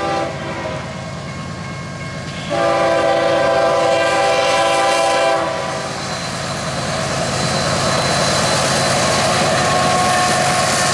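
A Canadian Pacific GE ES44AC diesel locomotive leading a freight train and sounding its horn for a grade crossing: a brief blast at the start, then one long blast of about three seconds. The locomotives and cars then rumble past with a clickety-clack, growing louder.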